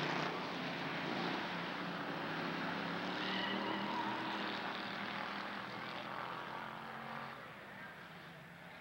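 Engines of a pack of hobby stock race cars running together through the turn. The sound fades over the last couple of seconds as the field pulls away down the far straight.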